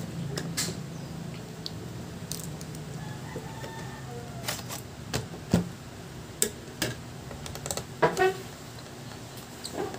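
Sharp plastic clicks and snaps from a Lenovo IdeaPad laptop's plastic bottom case being pried and pressed along its edges, its clips catching and releasing. The clicks come irregularly, with the loudest snaps about eight seconds in.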